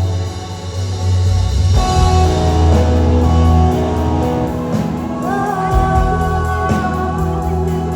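Live gospel worship music: a band with guitar and drums coming in about a second and a half in under a sung melody.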